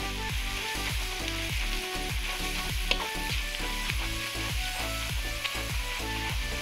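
Ground garlic and candlenut spice paste sizzling in hot oil in a wok, stirred with a metal spatula that taps the pan once sharply about three seconds in. A faint music bed runs underneath.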